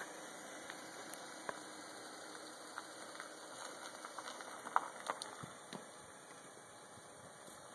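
Volkswagen New Beetle convertible rolling slowly over gravel: a faint, steady engine hum, with small clicks and pops of gravel under the tyres, the sharpest a little under five seconds in.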